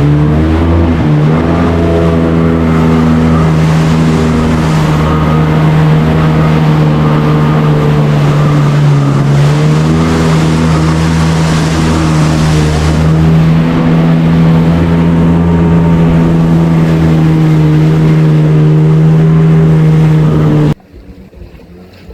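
Jet ski engine running steadily at speed, its note shifting slightly in pitch, then cutting off abruptly near the end.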